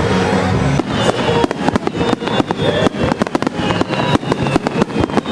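Aerial fireworks bursting in rapid succession: a dense barrage of sharp bangs and crackles, many a second.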